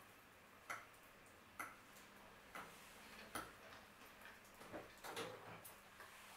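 Faint eating sounds as pizza is chewed: soft, irregular clicks and smacks about once a second over near silence.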